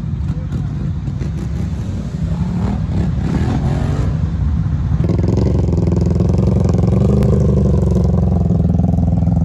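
ATV engines revving under load as the machines climb a steep, muddy bank. About halfway through, a second ATV close by takes over, its engine running loud and steady.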